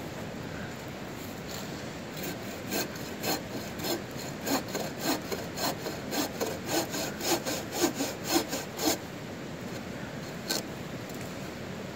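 Bow saw cutting through a thin tree stem: a run of rasping back-and-forth strokes that starts about two seconds in, speeds up to around three strokes a second and stops about three seconds before the end.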